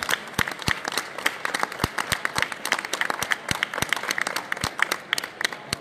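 Audience applauding: many hands clapping in an irregular patter.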